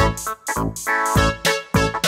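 Background music with a steady beat and pitched keyboard notes.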